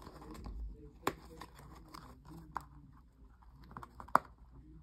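A small cardboard blind box being handled and picked at to open it: light scrapes and rustles with a few sharp taps and clicks, the loudest just after four seconds in.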